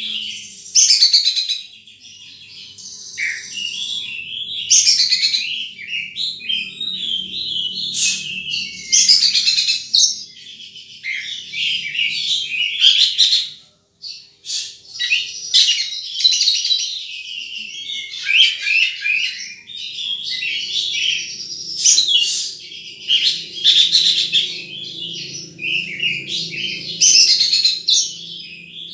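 Sunbird singing: a fast, almost unbroken run of high chirps, trills and sweeping notes, with a brief pause about halfway through.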